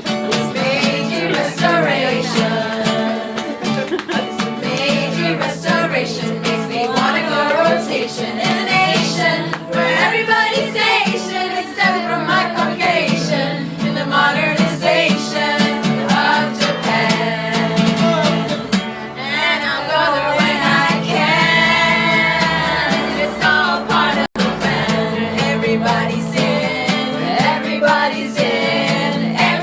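A song sung by voices over guitar accompaniment, with some long held notes in the middle. The sound cuts out for an instant about 24 seconds in.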